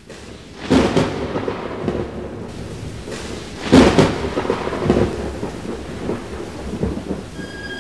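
Thunder over steady rain: two loud claps, one just under a second in and another about three seconds later, each rolling off into a rumble, with smaller rumbles after.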